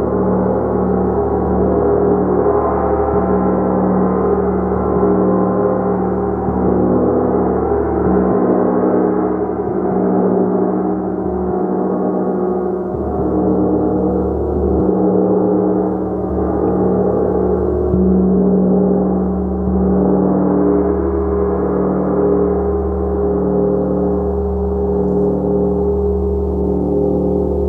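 Large gong played continuously, a dense sustained wash of overlapping tones whose low notes swell and fade.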